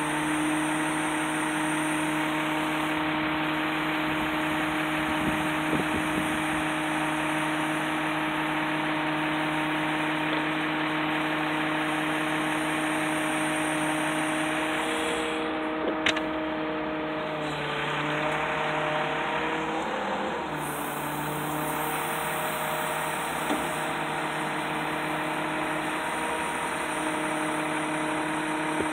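Bucket truck's engine and hydraulic system running steadily while the boom is moved, a hum of several even tones. About halfway through the pitch dips and wavers for a few seconds, with a single sharp click, then settles back.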